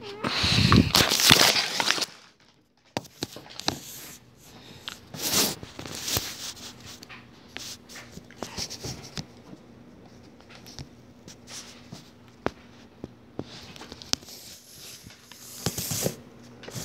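Rustling and scraping with scattered sharp clicks, loudest in a burst of about two seconds at the start and again near the end.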